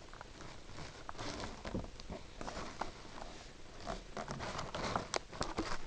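Plastic packaging rustling and clicking as a model locomotive is worked out of its moulded tray: irregular small clicks and crinkles, with a few sharper clicks near the end.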